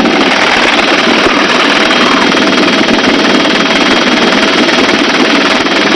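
Helicopter hovering: a loud, steady rush of rotor and engine noise mixed with wind on the microphone, with a faint thin whine running through it.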